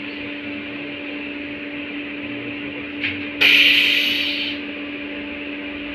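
Interior running sound of an LVS-86 tram: a steady electrical hum with a low tone. About three seconds in there is a click, then a sudden loud hiss that lasts about a second and fades away.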